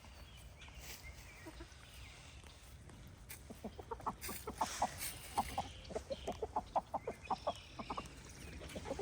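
Chickens clucking: after a few faint seconds, a run of short, quick clucks begins about three and a half seconds in, two or three a second, fading out near the end.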